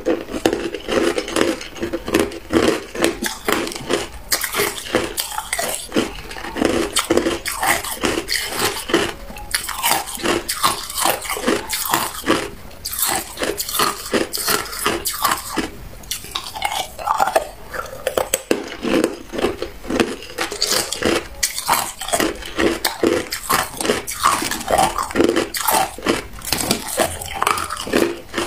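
Hard crushed ice being bitten and chewed in a rapid run of crisp crunches, with ice chunks clinking in a plastic cup as a hand picks through them.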